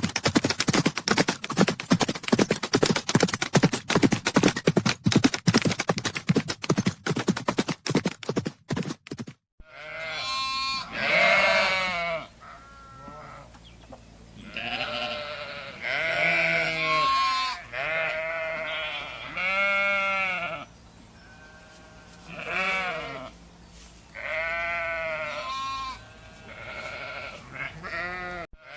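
Horses' hooves drumming fast and densely, like several horses galloping, for about the first third. It cuts off suddenly, and sheep follow, bleating one after another in separate calls of about a second each.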